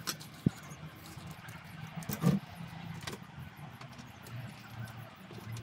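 A low, steady background rumble with a few scattered light knocks and clicks, and one louder thump about two seconds in.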